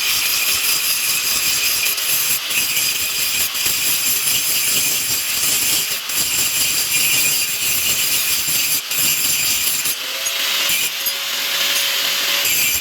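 Steel being ground: a steady, harsh rasping that runs without a break or stroke rhythm, with a faint steady tone near the end.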